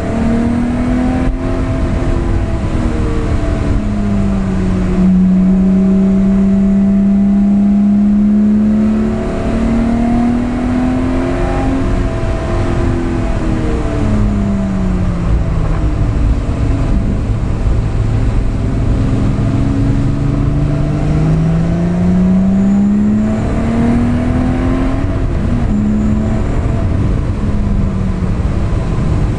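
Lotus Exige LF1's supercharged V6 heard from inside the cabin at track pace, revs climbing and falling repeatedly through acceleration, gear changes and braking, and holding steady for a few seconds about five seconds in. Steady tyre and road noise underneath.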